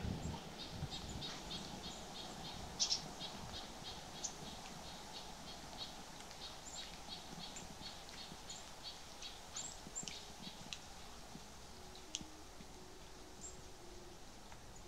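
A bird calling a long, even series of short high chirps, about two or three a second, which thin out and stop about three quarters of the way through.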